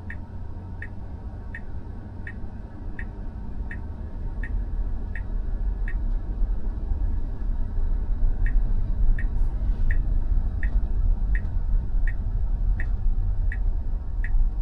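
Tesla Model Y turn-signal ticking steadily, about three ticks every two seconds, with a short pause midway before it resumes. Underneath is the low cabin rumble of road and tyre noise, which grows louder as the car picks up speed.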